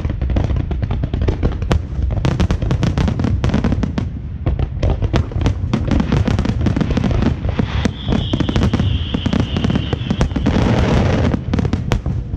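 Fireworks going off in rapid succession: dense crackling bangs over a continuous low rumble, with a high hissing whistle joining for a few seconds past the middle.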